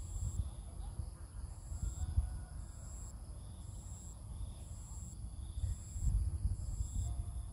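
Insects chirping in short pulses about once a second over a steady high insect hiss, with a low, uneven rumble of wind on the microphone underneath.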